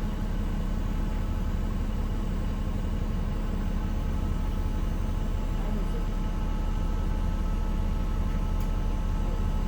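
Cummins ISM diesel engine of a 1993 Gillig Phantom transit bus running steadily, heard inside the bus: a low drone with an even humming tone over it that doesn't change.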